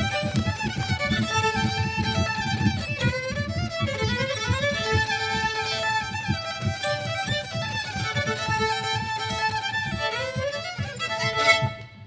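Two violins playing a melody in duet over a low rhythmic accompaniment, the piece ending on a final note near the end.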